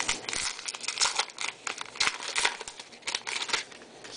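Baseball trading cards handled close by: an irregular run of quick crinkles and scrapes as the cards are shuffled through a pack.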